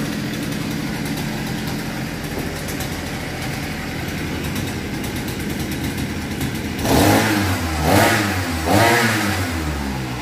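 Small air-cooled Nakajima 3 hp outboard motor running steadily at idle out of the water, then revved three times about a second apart near the end as its hand throttle is squeezed and released.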